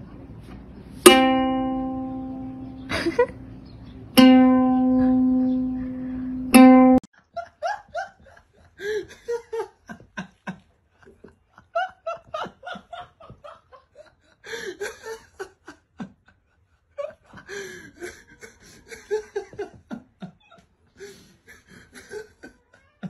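Ukulele strings strummed by a cat brushing its head and paw across them: four sudden chords, each ringing and dying away. After that comes a long stretch of short, stop-start voice sounds.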